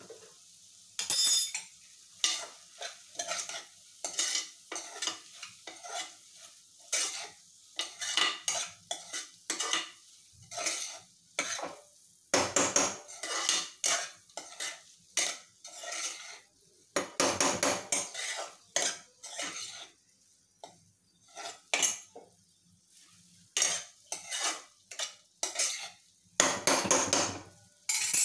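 Steel spoon scraping and clinking against the inside of an aluminium pressure cooker as vegetables are stirred, in irregular strokes with a few longer scrapes about a second each.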